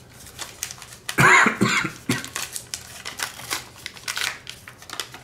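Foil card-pack wrapper crinkling and crackling as it is handled and torn open by hand, in many small, sharp crackles. About a second in there is a brief, louder vocal noise from the person.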